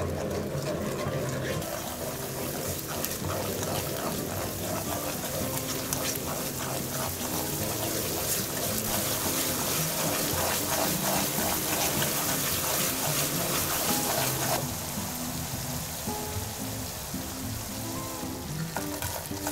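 Background music over thick chili-paste sauce bubbling and sizzling in a frying pan while a wooden spoon stirs it. The sizzle drops off sharply about three-quarters of the way through.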